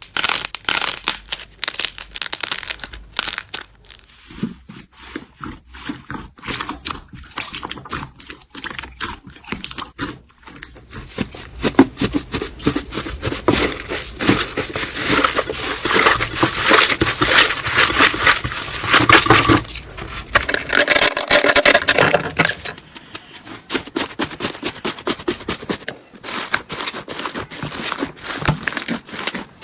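Slime being squeezed and worked by hand, giving a dense run of crackling, clicking pops that grows busier and louder midway through.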